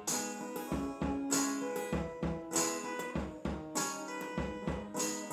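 Live band playing the instrumental intro of a song right after a count-in: drums with a cymbal crash about every second and a quarter, over sustained guitar chords.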